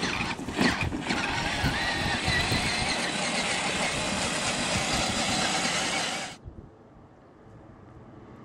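Child's battery-powered ride-on toy Jeep driving across grass: a loud, steady motor-and-gear running noise that cuts off suddenly about six seconds in, leaving a faint outdoor background.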